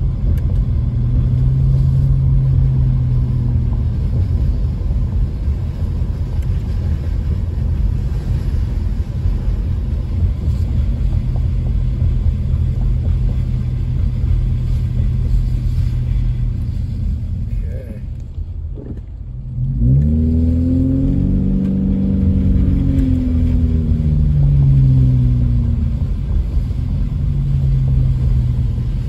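Car engine and road noise heard from inside the cabin while driving. About eighteen seconds in, the noise drops briefly as the car slows. The engine then pulls away, its pitch rising and falling several times as it accelerates.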